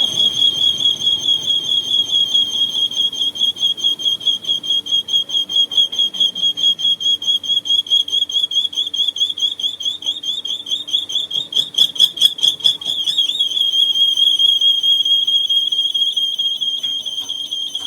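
A loud, high-pitched metallic squeal from a lathe tool cutting a rotating excavator track roller, pulsing about five times a second and settling into a steadier tone about three-quarters of the way through.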